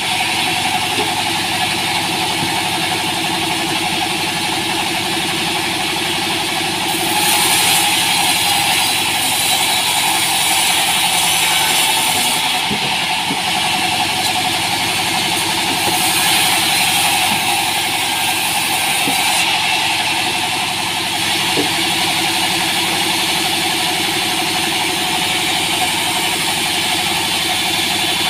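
Band sawmill running steadily with its drive engine humming. The blade rasps through a small green log twice, a few seconds each time, about a quarter of the way in and again around the middle.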